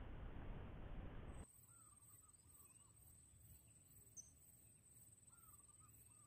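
Mostly near silence. A low outdoor rushing noise cuts off abruptly after about a second and a half. After that come two short groups of faint, distant bird calls over a thin, steady, high-pitched whine.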